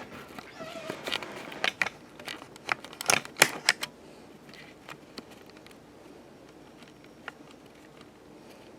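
A run of irregular light clicks and taps, busiest in the first four seconds, then only quiet room tone.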